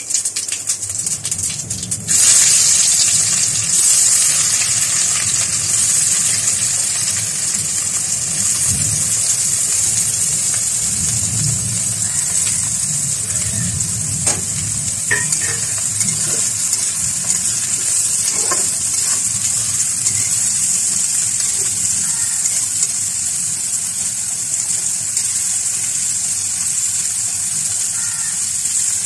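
Chopped onions and green chillies sizzling in hot oil in a kadai, the sizzle jumping louder about two seconds in as they hit the oil, then settling into a steady frying hiss with a few light knocks.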